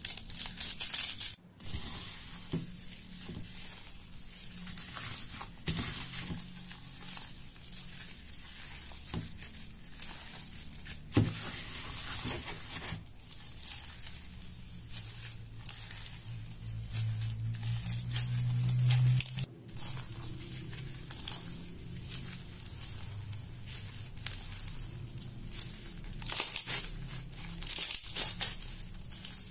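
Foam-bead slime (floam) being kneaded and squeezed by hand: a dense, crunchy crackling of the little polystyrene beads, with plastic bag crinkling at the start as the beads are tipped in. A low hum swells in the middle and cuts off suddenly.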